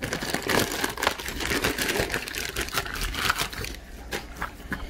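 Plastic shipping mailer crinkling and tearing as it is ripped open by hand, a dense crackle that eases off after about three and a half seconds into a few soft rustles and clicks as the box inside is pulled out.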